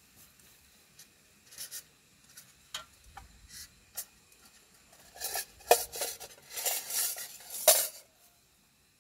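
A run of clinks and scrapes from small objects being handled, sparse at first and thickening into a busy clatter in the last few seconds, which stops abruptly about a second before the end.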